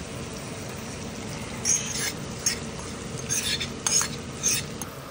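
Chicken pieces being stirred into a pan of frying onions and tomatoes with a plastic slotted spatula: a steady frying sizzle, with a handful of short scrapes of the spatula against the pan from about a second and a half in.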